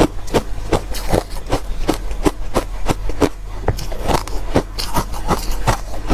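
Crunchy ice being bitten and chewed close to the microphone: a quick, irregular run of sharp crunches, about three or four a second.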